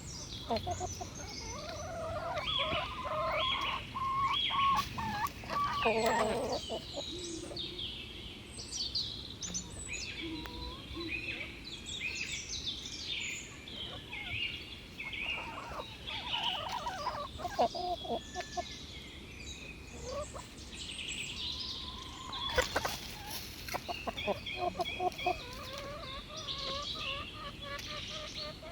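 Chickens clucking and calling, with many small birds chirping over them.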